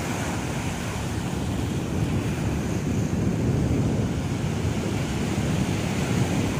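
Waves washing onto a rocky shore, with wind buffeting the microphone in a steady low rumble.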